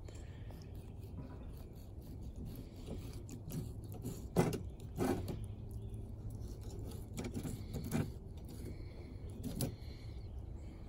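Fillet knife cutting and scraping on a small channel catfish held against a wire grill grate, with a few sharp metallic rattles and knocks of the grate, the loudest two near the middle.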